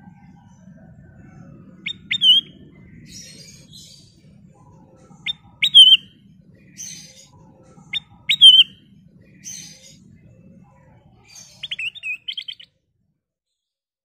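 Ruby-throated bulbul (kutilang emas) singing three similar clear phrases, each a sharp short note followed by a whistle that rises and then wavers down, with fainter scratchy notes between them. Near the end comes a fast run of short notes.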